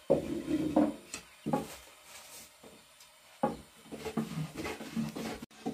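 Thin wooden rolling pin knocking and rolling against a round wooden board as flatbread dough is lifted and rolled out, with a few sharp knocks and rolling in between.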